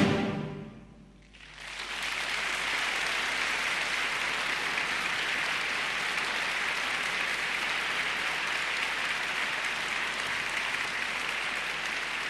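The band's final chord dies away in the hall's reverberation. After a brief hush, about a second and a half in, the audience breaks into steady applause.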